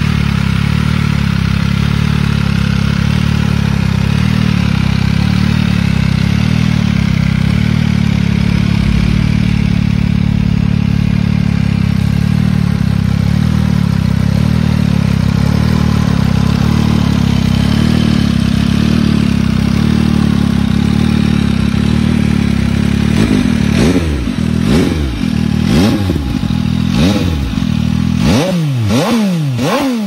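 MV Agusta Brutale 800 RR's inline three-cylinder engine on an MV Agusta Corse Trio titanium exhaust, idling steadily. About three-quarters of the way in it is revved in a series of quick throttle blips, each rising and falling, coming faster toward the end.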